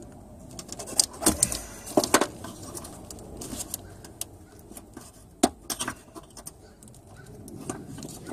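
Short sharp clicks and knocks of plastic and metal as a screwdriver pries and hands pull the wiring harness and its clips loose at a 2005 Toyota Camry's wiper motor. A cluster comes about one to two seconds in and another about five and a half seconds in.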